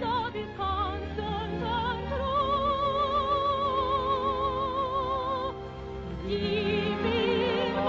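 Operatic soprano singing with a wide vibrato, holding one long high note through the middle before moving to a lower phrase near the end, over sustained orchestral accompaniment.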